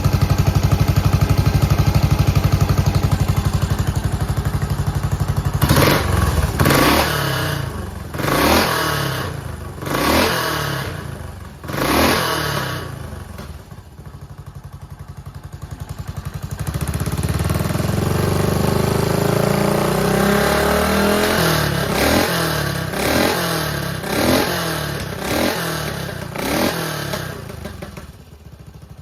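Yamaha SR400 single-cylinder four-stroke engine, out of the bike as a bare assembly, running. It idles steadily at first, then is blipped sharply on the throttle about five times. It drops to a quieter idle midway, revs up again and takes a string of further blips near the end. The seller offers it as running with no abnormal noise.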